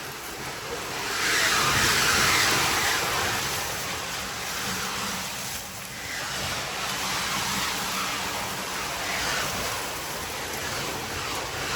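Ice-crushing machine running as crushed ice is loaded into a fishing boat's hold: a steady rushing noise that swells loudest between about one and three seconds in.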